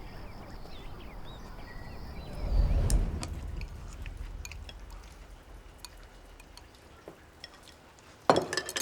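A low rumble swells and fades about two and a half seconds in. Scattered small clicks follow, then a quick cluster of clinks, like dishes or cutlery, near the end.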